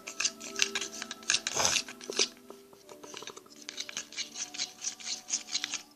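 A spoon stirring and scraping through a thickening mixture of glue, hair cream and detergent in a container, making quick, irregular scrapes and clicks, several a second.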